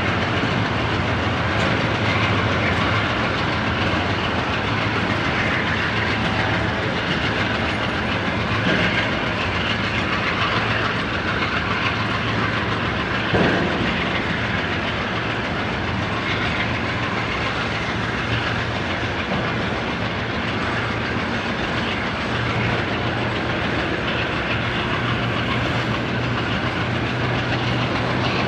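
Freight train's tank cars rolling past on the rails, a steady noise of wheels on track with a low hum underneath. One louder knock stands out about halfway through.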